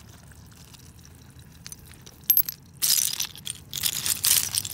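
A few small clicks of stones and shell pieces being handled, then from about three seconds in a loud, uneven rattle and scrape of broken shells and pebbles clinking as a hand digs through them.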